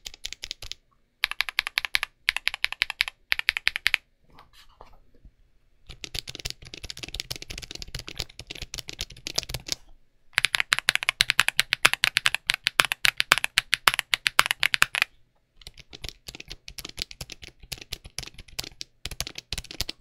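Rapid typing on a mechanical keyboard fitted with Outemu Tom Silent Tactile switches on the D, F and G keys and standard Akko switches elsewhere, in several fast bursts with short pauses between them.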